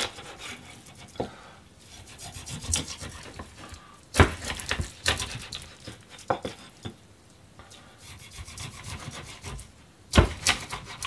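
Kitchen knife cutting a half salmon into steaks on a plastic cutting board: quiet sawing strokes through the flesh and skin, and several sharp knocks as the blade chops through the backbone and hits the board.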